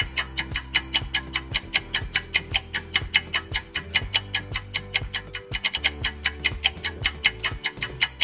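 Countdown-timer sound effect: rapid, even clock-like ticking, about five ticks a second, over a low sustained music bed.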